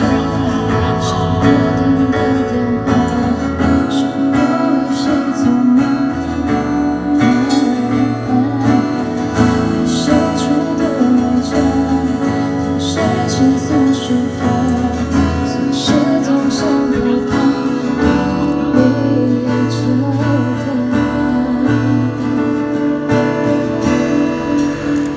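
Live band music, with guitar to the fore over a bass line.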